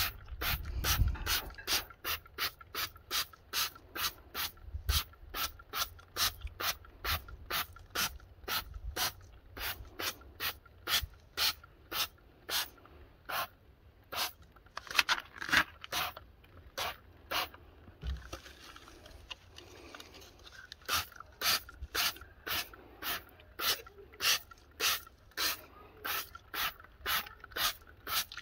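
Hand trigger-spray bottle squirting wheel cleaner onto an aluminium wheel rim in quick repeated pumps, about two a second, with a pause of a few seconds about two-thirds of the way through.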